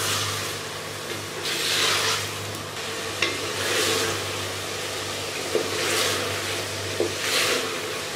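Beef pieces and ginger-garlic paste sizzling in hot oil in an aluminium pressure cooker while a wooden spoon stirs them. The sizzle swells with each stroke, about every two seconds, and the spoon knocks against the side of the pot a few times. This is the bhuna stage, the meat being fried with the paste.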